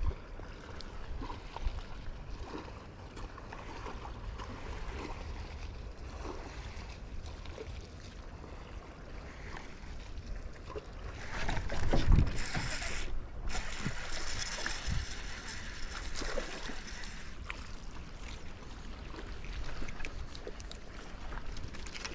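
Wind rumbling on the microphone and water moving around a small fishing boat, swelling to a louder rush about twelve seconds in.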